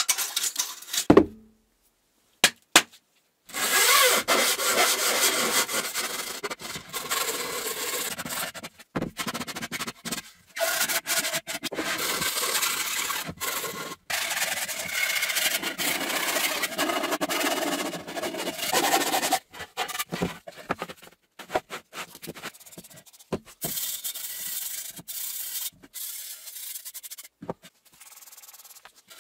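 Hand sanding of 3D-printed plastic mold parts: fast back-and-forth rubbing strokes of abrasive on plastic, steady for a long stretch and then breaking into shorter, more scattered strokes and lighter rubbing near the end. A few knocks of plastic pieces being handled at the start.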